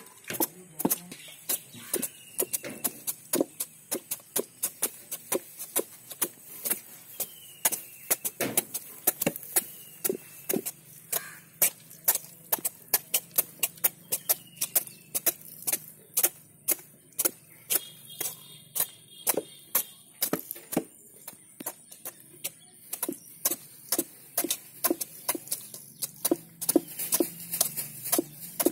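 Repeated sharp chopping strokes of a heavy cleaver slicing the spiky rind off a raw jackfruit, a few irregular strokes a second, the blade knocking against the wooden board beneath.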